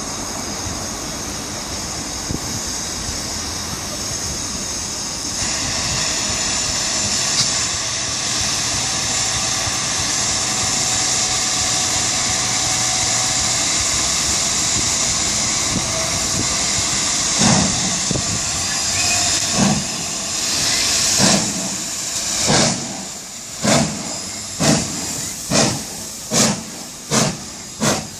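Steam locomotive 5029, a GWR Castle-class 4-6-0, hissing steam steadily while standing, then starting away: slow, separate exhaust chuffs from the chimney that quicken to about one a second near the end.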